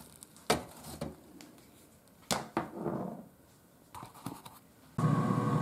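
A plastic spatula knocking and scraping against a perforated air fryer basket as two burger patties are flipped: sharp knocks about half a second and two seconds in, then softer scrapes. Near the end a steady hum starts abruptly.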